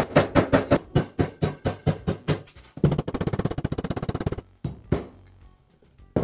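Hammer tapping a pin punch, metal on metal, driving roll pins out of a Bostitch nailer's housing: strikes about four or five a second that fade out about two and a half seconds in, then a faster run of lighter taps for about a second and a half, then a few single taps.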